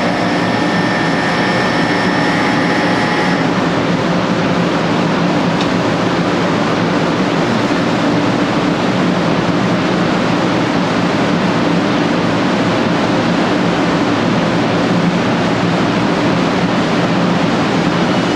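500 series Shinkansen pulling out of the station and running past the platform, a loud, steady rush of motors and wheels. A steady high tone sounds over it for the first few seconds and stops suddenly.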